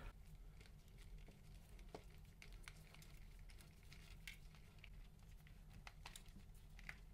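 Near silence with faint, scattered small clicks and ticks from a small screwdriver driving screws into a 3D-printed plastic connector housing, over a faint steady low hum.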